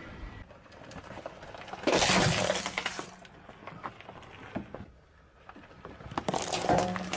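Objects crushed under a car's tyre, crunching and breaking: a loud crunch about two seconds in, small cracks and crackles after it, and a second crunch near the end.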